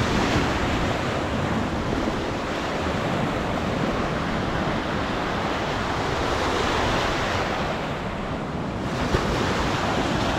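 Surf in an artificial wave pool: a continuous wash of breaking, rushing water that swells about six to seven seconds in, with wind buffeting the microphone.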